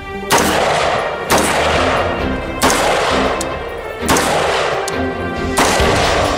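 Five single shots from a Windham Weaponry MPC AR-15 carbine in 5.56 NATO, about one every second to second and a half, each followed by a fading echo. Background music plays underneath.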